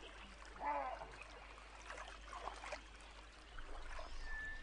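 Water sloshing and trickling as monkeys wade through shallow water. A short pitched animal call is heard under a second in, and a thin whistle near the end.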